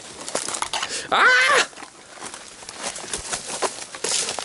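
Twigs cracking and leaves rustling as a person pushes and pulls through dense bushes, stuck among the branches. About a second in, one short, high-pitched strained cry from him.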